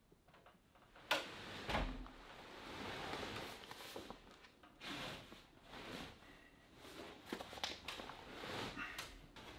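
Handling noise from a heavy, thick vinyl yurt top cover being hoisted and shifted: rustling and scraping, with a sharp knock about a second in and a few smaller bumps.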